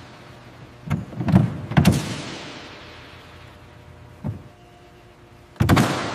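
A run of heavy mechanical clunks, each with an echoing tail: three close together between about one and two seconds in, a lighter one a little past four seconds, and a loud one near the end.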